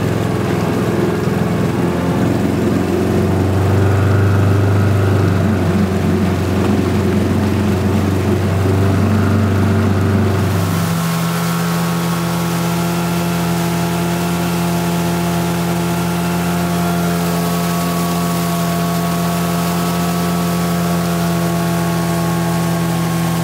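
Small outboard motor pushing a folding dinghy along at speed, running steadily. About eleven seconds in the engine note changes to a lower, even hum and then holds steady.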